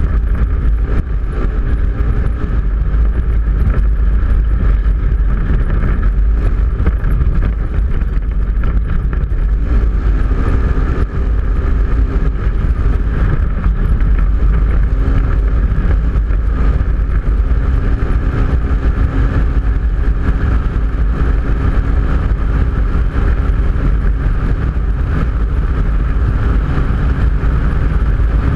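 Polaris RZR 900 side-by-side driving at speed, heard from inside its open cab: the engine runs loud and steady, holding a near-constant pitch, over a deep rumble.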